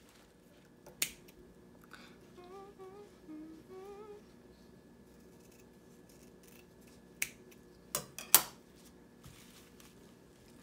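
Scissors snipping ribbon: one sharp snip about a second in, then a quick run of snips around seven to eight seconds in, the last the loudest.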